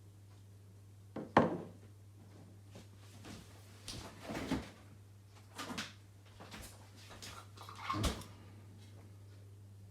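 A few separate knocks and clatters of things being handled, the sharpest about a second and a half in, over a steady low hum.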